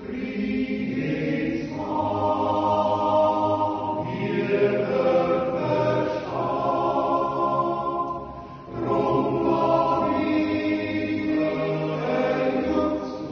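Swiss men's yodel choir singing a cappella, with long held chords in phrases and a short breath break about eight and a half seconds in.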